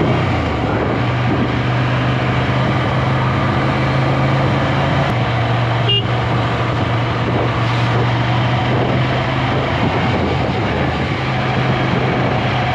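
Ducati Scrambler's L-twin engine running steadily at cruising speed, with wind and road noise rushing over the microphone.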